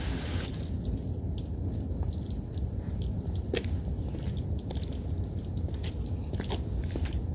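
Garden-hose spray nozzle hissing against the car, shut off about half a second in. Then a low wind rumble on the microphone, with scattered light clicks and taps, among them footsteps on wet pavement.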